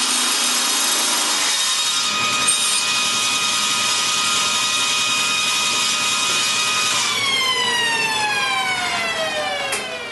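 Table saw running while a cordless drill spins a wooden blank through a dowel-cutting jig against the blade. The drill stops about a second and a half in. About seven seconds in the saw is switched off, and its whine falls steadily in pitch as the blade coasts down.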